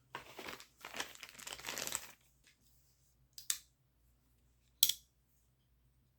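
Packaging crinkling and rustling for about two seconds, then two short, sharp clicks a little over a second apart, typical of a folding pocketknife's blade snapping open and shut.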